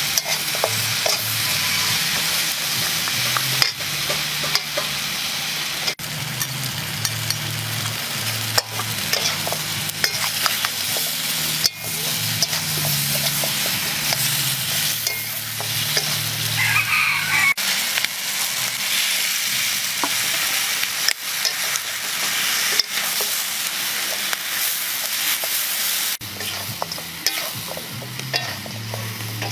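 Chicken feet sizzling as they fry in a wok, with a metal spatula stirring them and clicking and scraping against the pan.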